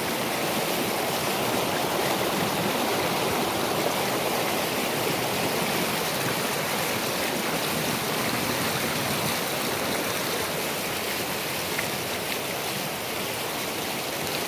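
Fast-flowing river water rushing over rocks in a shallow cascade, close to the microphone: a steady, even rush.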